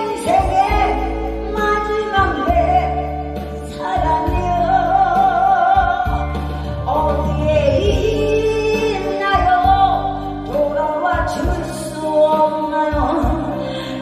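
A woman singing into a handheld microphone over a backing track, holding long wavering notes above a steady bass line.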